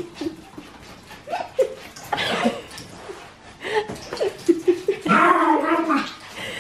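Small fluffy dog's excited play noises, short growls and yips, as it dashes about with a toy.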